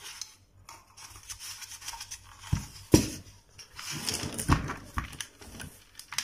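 Plastic clicks and knocks as a reassembled steam iron is handled, turned by its knob and set down on a workbench, with the sharpest knock about three seconds in. Several more knocks and rustles follow as a multimeter is put down beside it.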